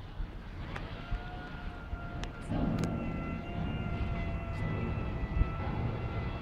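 Fog cannon on a dust-suppression truck running: its large fan gives a steady multi-pitched whine that comes in about a second in, and a louder low rush joins about halfway through.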